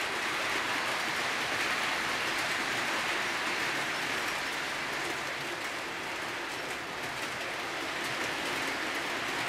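HO-scale model train, a C59 steam locomotive kit hauling a rake of passenger cars, running on the layout's track: a steady rushing hiss of metal wheels rolling on the rails, easing slightly past the middle as the train draws away.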